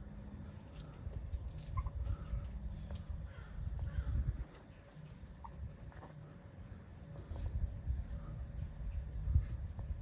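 Outdoor farmyard ambience: a low rumble that comes and goes, with a few faint, short bird calls.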